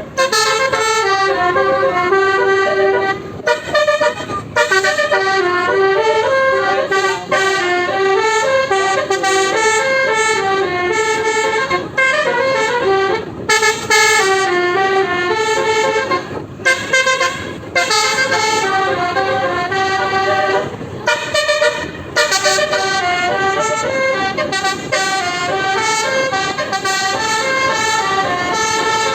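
Bus telolet (basuri) musical horn playing a long, continuous tune in stepped notes that jump up and down, breaking off briefly a few times before starting again.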